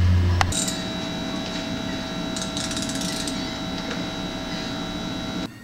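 Power tool running steadily with a whine while a carved wooden tiki is fastened to a post, with rapid clicking about halfway through. It cuts off suddenly near the end.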